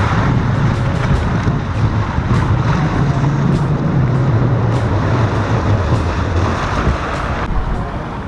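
Sea surf breaking and washing over a rocky shore, with wind rumbling on the microphone.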